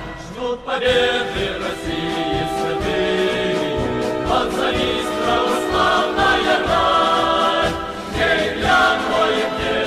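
Choral anthem: a choir singing in long held notes over musical accompaniment, coming in after a brief lull about a second in.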